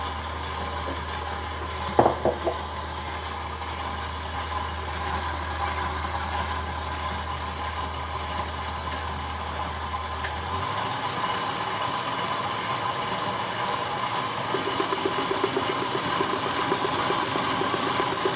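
Stand mixer motor running steadily, its wire whisk beating cream to a semi-whipped stage. A few quick knocks sound about two seconds in.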